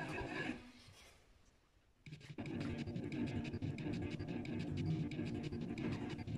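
Plastic scraper card dragged through ink across a screen-printing mesh, a scratchy scraping made of many fine strokes. It starts about two seconds in, after a short near-silent gap.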